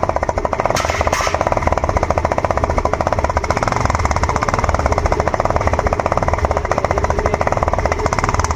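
Scooter engine idling with an empty kite-string spool cone held over its tailpipe, the exhaust coming out as a loud, rapid, even putter ('phad-phad-phad').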